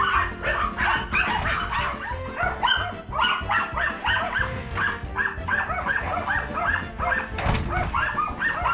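Dogs yipping and barking in quick succession, several short high calls a second without a break, over background music.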